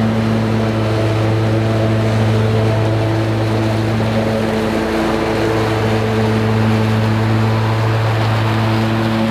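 Toro 6000 Series zero-turn mower running at a steady pitch while mowing tall, thick grass.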